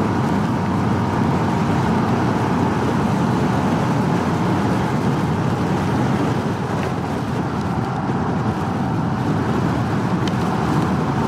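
Steady wind and road noise from riding a 2019 Honda Super Cub C125 through gusty wind and rain, mixed with the hum of its 125 cc single-cylinder engine.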